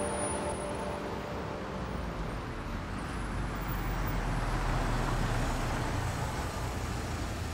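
A car's engine running low amid steady street traffic noise; the low engine sound grows stronger a couple of seconds in and eases off near the end.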